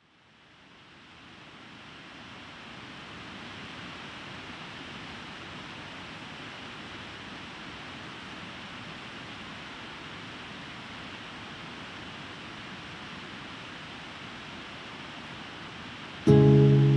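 Steady rushing of a river over rapids, fading in over the first two seconds or so. Near the end a loud strummed acoustic guitar chord cuts in.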